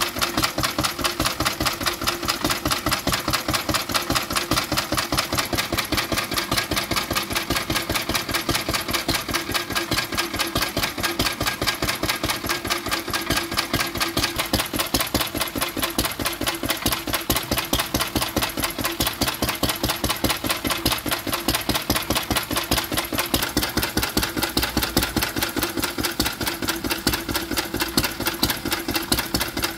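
Lister A type Junior vertical single-cylinder petrol stationary engine running steadily, its exhaust beating in a quick, even rhythm.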